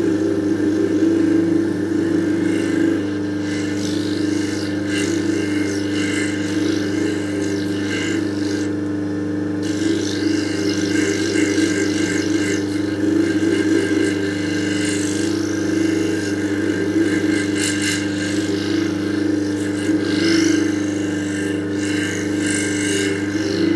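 Lapidary flat-lap polishing machine running with a steady motor hum, while a cabochon on a dop stick is pressed against the spinning polishing pad, adding an uneven hissing scrape that comes and goes.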